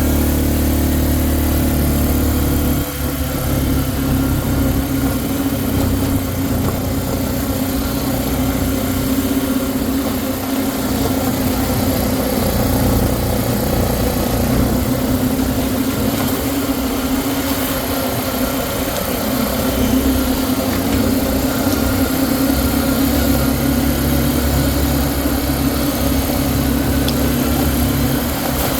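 A four-wheeler's engine running steadily while riding, its note shifting about three seconds in and then holding even.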